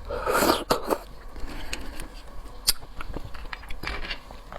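A person eating close to the microphone: a loud wet bite or slurp near the start, then scattered chewing smacks and small clicks.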